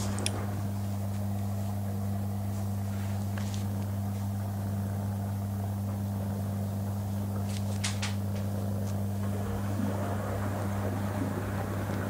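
Front-loading washing machine running with a steady low hum, with a few light clicks, three of them in quick succession about eight seconds in.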